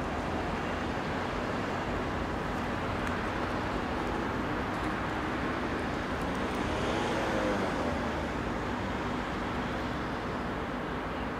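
Steady outdoor rumble of distant traffic with a low hum. About seven seconds in, one vehicle's engine note swells and bends in pitch as it passes.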